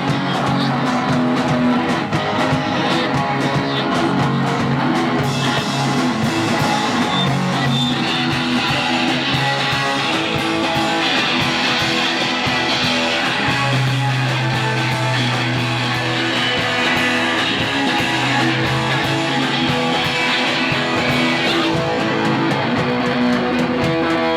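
Punk band playing live: loud strummed electric guitar over held bass notes, with drums.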